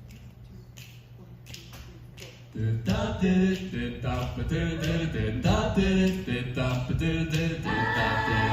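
An a cappella vocal group starting a doo-wop song about two and a half seconds in: a bass voice and higher harmonies sing wordless backing syllables in a steady rhythm. Before that there is only a low steady hum with a few faint clicks.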